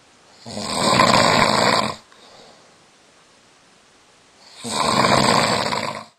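A sleeping man snoring: two long, loud snores about four seconds apart, each lasting about a second and a half, the second cut off sharply near the end.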